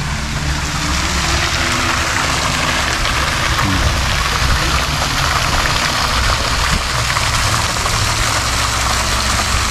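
Steady rush of splashing water, an even hiss with a low steady hum underneath.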